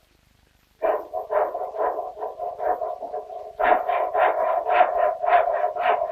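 Rhythmic hammer blows, about three a second, over a sustained metallic ring, getting faster and louder about halfway through: a cooper driving iron hoops down onto a wooden barrel.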